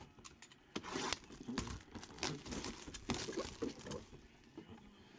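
A shrink-wrapped cardboard box being handled: irregular crinkling of the plastic wrap with light taps and knocks on the cardboard.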